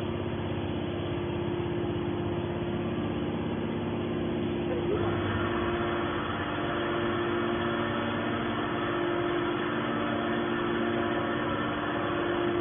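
Hydraulic can baler running, its pump motor giving a steady hum of several fixed tones; about five seconds in the higher-pitched part of the sound grows louder as the machine works under load.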